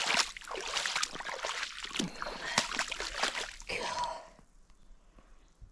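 Wellington boots wading through deep puddle water: irregular splashing and sloshing steps, which stop about four seconds in.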